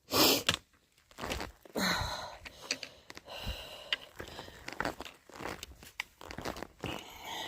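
Irregular crunching, scuffing and rustling close to the microphone as a hiker steps down a steep rocky dirt trail, with a loud rustle just after the start.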